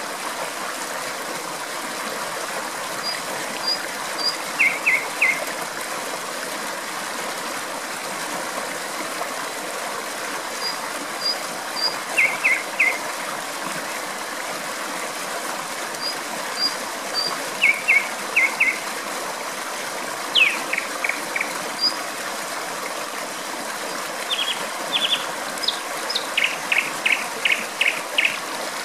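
Steady rushing of flowing stream water, with a songbird singing short phrases of three or four quick clipped notes every few seconds. The phrases come closer together near the end, ending in a run of about six notes.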